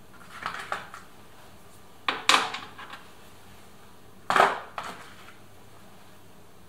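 Three short bursts of clattering and rattling from metal and plastic parts being handled inside a Toyota RAV4's stripped driver's door while the window regulator motor bolts are reached for.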